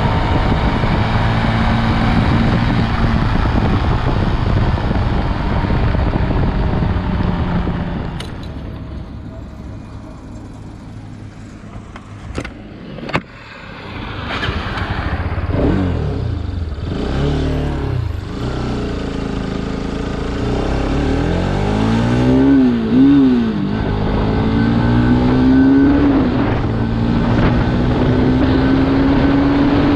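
Bajaj Pulsar RS200's single-cylinder engine heard through its stock exhaust while riding: it runs steadily, drops away to a quieter note about a third of the way in with two sharp clicks, then revs up and down several times and climbs steadily near the end. Wind blast on the microphone runs underneath.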